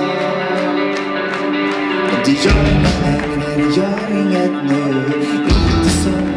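Live rock band performance: a male voice singing over strummed electric guitar, with deep bass hits about two and a half and five and a half seconds in.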